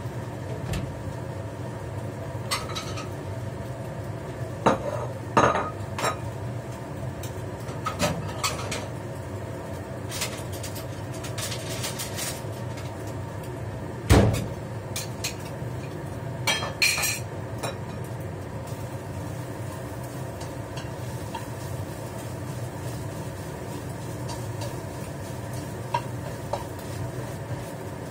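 Kitchen utensil clatter: a metal spatula and pans or dishes giving scattered clinks and knocks, the loudest a single sharp knock about halfway through, over a steady low hum.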